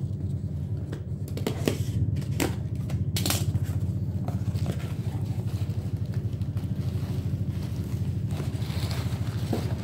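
A cardboard parcel being opened by hand. In the first few seconds there are sharp clicks and scrapes as a cutter slits the packing tape and the flaps are pulled open. Near the end comes the crackling rustle of a bubble-wrapped item being lifted out, all over a steady low mechanical hum.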